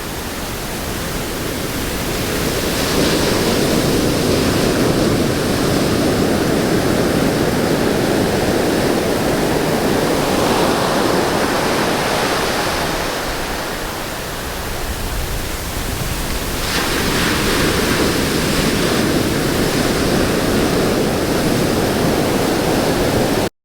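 Ocean surf washing onto a beach, a steady rushing that swells and eases twice. It cuts off suddenly near the end.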